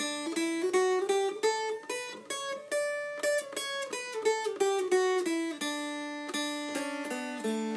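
Mountain dulcimer played note by note up a scale and back down, over a steady drone string. A few more strummed notes follow near the end.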